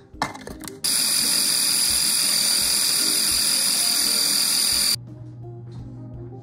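Food processor motor running with a steady high whine, blending chickpeas and avocado into a smooth paste. It starts abruptly about a second in and cuts off suddenly about four seconds later.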